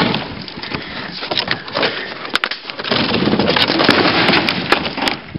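Wooden boards and plywood cracking and splintering, a run of sharp snaps and crackles that is densest about three to five seconds in.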